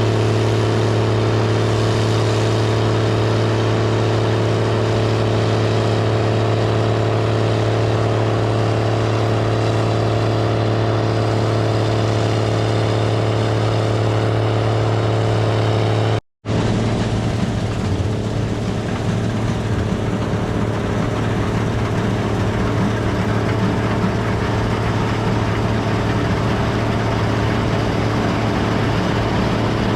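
Gleaner R72 combine running steadily while harvesting rye: a constant engine and machinery drone with a strong low hum. The sound cuts out for an instant about sixteen seconds in and comes back as a rougher, less even hum.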